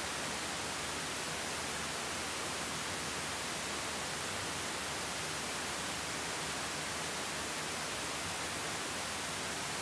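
Steady, even hiss with nothing else heard: the recording's background noise.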